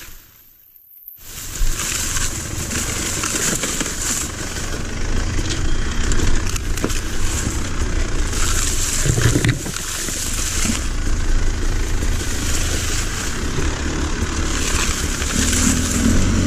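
Dirt bike engine running as the bike pushes through dense brush, with branches crunching and scraping against it. The sound drops out for about a second at the start, and the engine note grows stronger near the end.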